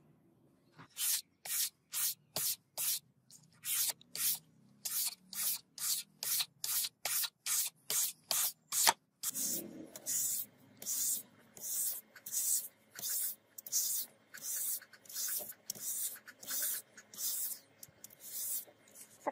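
Steel katana blade rubbed back and forth by hand over sandpaper on a flat block, 220 grit in the second half, to polish off rust. It makes an even scraping hiss about twice a second, fuller and denser after a change just past halfway.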